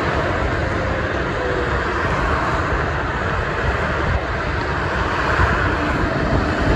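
Dense multi-lane expressway traffic passing beneath an overpass: a steady rush of tyre and engine noise from cars and transport trucks.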